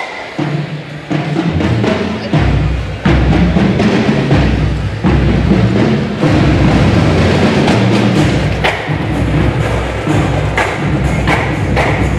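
Music with a drum beat and deep bass begins about half a second in; the bass fills out a couple of seconds later and the music then runs on steadily.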